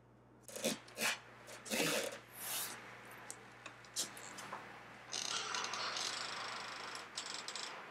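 A few light knocks and clicks in the first few seconds, then a few seconds of rubbing or rustling that fades near the end.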